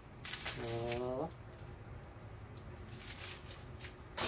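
Paper and packaging rustling as items are taken out of a cardboard box and handled, with a short hummed vocal sound about half a second in and a single sharp knock near the end.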